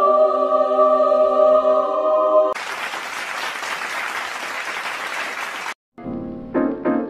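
A held chord sung by a choir, cut off about two and a half seconds in by about three seconds of applause. After a brief gap, short brass notes start near the end.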